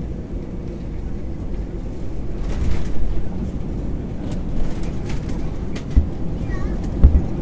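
Airbus A321 cabin rumble as the airliner rolls on the ground after landing, a steady low noise with a few sharp jolts near the end.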